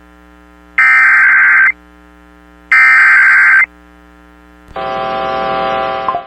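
Emergency Alert System SAME header data bursts: two shrill, buzzing one-second bursts of data tone about a second apart. About four and a half seconds in, a steady, rougher alert tone begins, the start of the EAS attention signal ahead of a severe thunderstorm warning.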